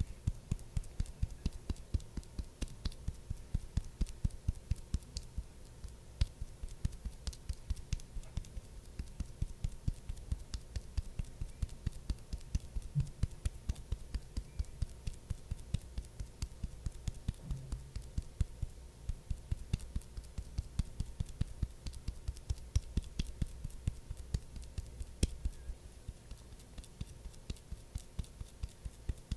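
Soft, even patting taps in a steady run of about three a second, close to the microphone: ASMR skin-care patting.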